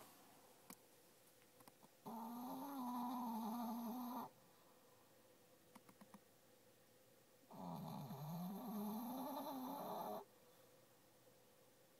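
Shih Tzu dog snoring in her sleep: two long, wavering snores a few seconds apart, each lasting about two to two and a half seconds.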